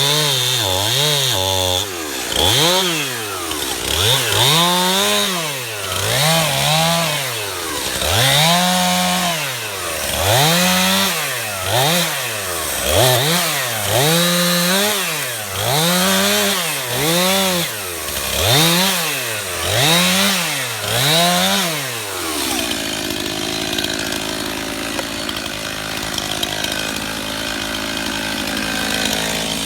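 Stihl MS291 two-stroke chainsaw revving up and falling back about every two seconds as it makes a run of short cuts. About 22 seconds in it drops to a steady idle.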